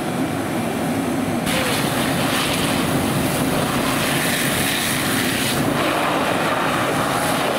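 Fire engine's pump running steadily while a hose stream hisses onto a burning car. The hiss of the water and steam gets louder about a second and a half in.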